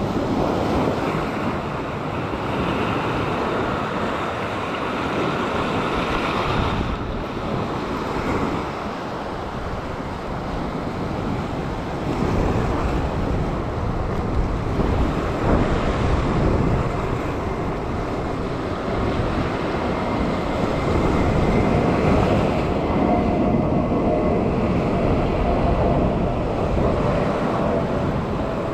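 Surf breaking and washing over a rock ledge, surging in and out, with wind buffeting the microphone. A faint steady hum joins in the last few seconds.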